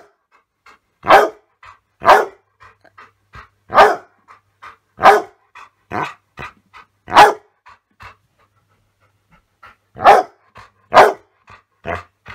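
A dog barking loudly in single sharp barks about a second or two apart, with a pause of about two seconds before the last few. Quieter short huffs and panting come between the barks.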